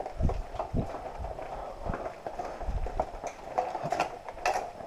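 Hurried footsteps on a hard floor, an irregular run of thumps and clicks.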